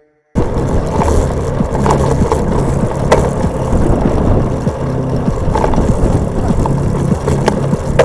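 Rolling and rattling noise of a vehicle being ridden on a road, with a low wavering hum and scattered clicks and knocks; it starts abruptly just after the start.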